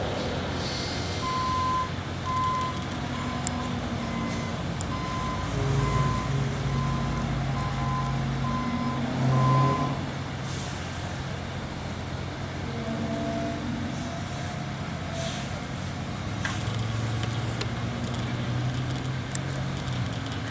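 Diesel engine of a ready-mix concrete truck running, with its backup alarm sounding about thirteen short beeps while it reverses. The engine revs up partway through, then the beeping stops and the engine settles back to a steady run.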